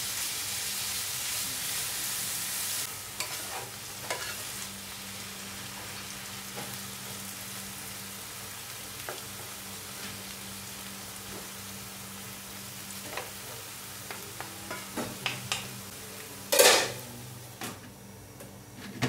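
Beef mince with onion, garlic and ginger sizzling in a wok while being stirred and turned with two wooden spatulas, with scattered scraping knocks against the pan. The sizzle is strongest in the first few seconds. Near the end comes a louder clatter as the glass lid is set on the wok.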